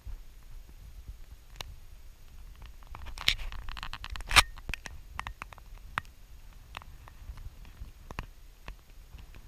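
Close handling noise from a handheld camera: scattered small clicks and rustles, a denser rustle about three seconds in, then one sharp, louder click.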